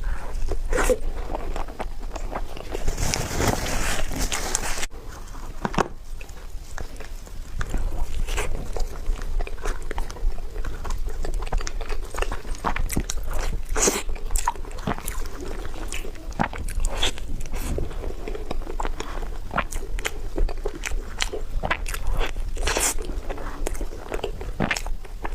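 Close-miked eating of a tiger skin dessert: biting and chewing, with many short wet mouth clicks and a denser stretch of noise about three seconds in.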